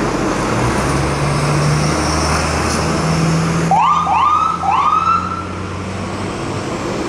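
Rescue ambulance's electronic siren giving three quick rising whoops about four seconds in, over a low steady hum.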